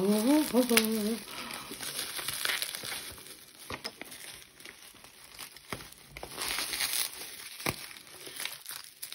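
Bubble wrap being handled and pulled open around a package, crinkling and crackling with scattered sharp clicks. A short wordless vocal sound comes in the first second.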